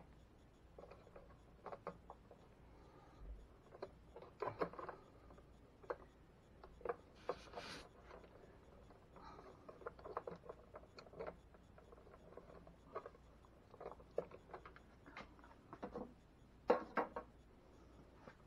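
Faint, irregular clicks, rustles and rubbing of insulated electrical wires being bent and tucked into a plastic junction box by hand, with a louder double clack near the end.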